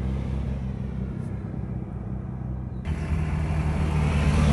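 Car engines running steadily at low revs as cars pass in a slow line, growing louder toward the end as another car draws close. A hiss comes in suddenly about three seconds in.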